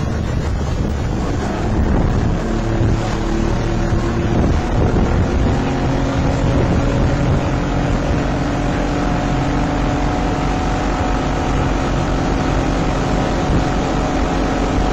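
RNLI inflatable inshore lifeboat's outboard engines running at speed, a steady engine note over rushing wind on the microphone and water against the hull.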